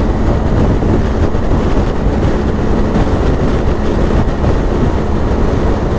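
Strong wind noise rushing over the microphone at motorway speed, with the steady drone of a BMW R1250GS Adventure's boxer-twin engine beneath it.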